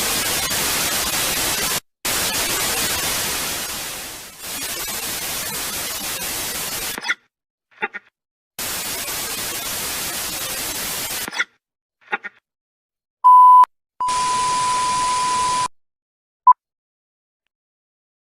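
Stretches of loud white-noise static, four in a row, one fading away before the next starts, broken by short blips; then a short beep and a longer steady beep over hiss, and a last short beep.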